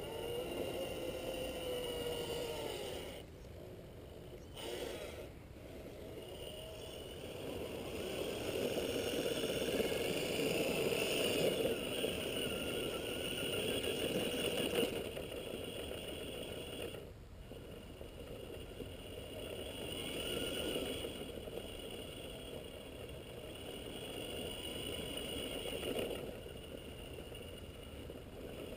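Gmade Sawback RC scale crawler's Holmes Hobbies 27-turn brushed motor and gear drivetrain whining as it crawls up a rock slab. The whine swells and fades with the throttle and drops out briefly a few times.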